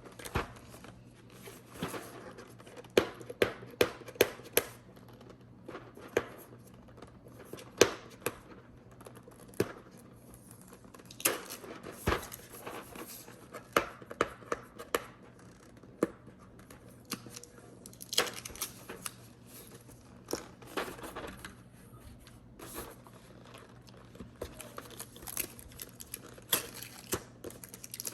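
Packaging being handled during a keyboard unboxing: crinkling and tearing of wrapping mixed with irregular sharp clicks and knocks.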